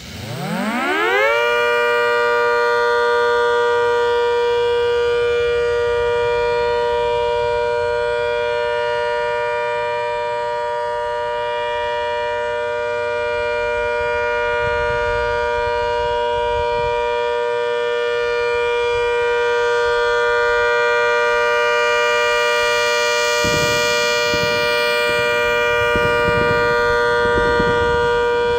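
A 'Hurricane' rotating siren, loud, winds up in about a second and a half from a low growl to a steady two-tone chord and holds it. Its level swells and sags slightly as the horn turns, and a low rumble joins about 23 seconds in.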